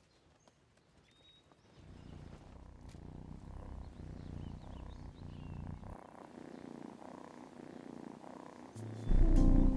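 A silver tabby cat purring, a low rumble that starts about two seconds in and softens after about six seconds. Music comes in loudly near the end.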